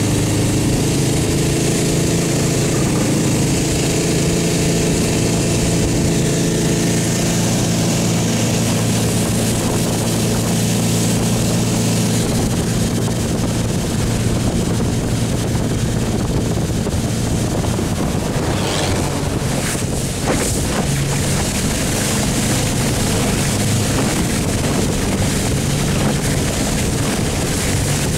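Vỏ lãi long-tail boat with a converted vehicle engine running hard at high speed: a steady engine drone over rushing water and spray hissing along the hull.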